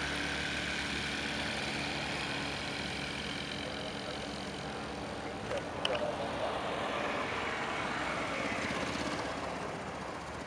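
Distant Boeing 787 Dreamliner jet engines on a flyby: a steady roar with a high whine that fades over the first couple of seconds, easing slightly toward the end. A brief click about six seconds in.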